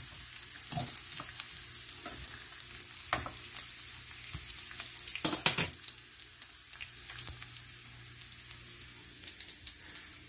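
Pepperoni and salami slices sizzling and crackling in oil in a frying pan, nearly done and crisping. A few louder clicks and pops stand out about three and five seconds in.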